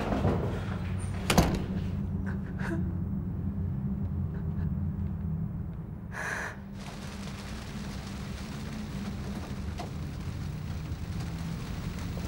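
A low steady drone, with a single sharp knock about a second and a half in and a woman's short, sobbing intake of breath about halfway through.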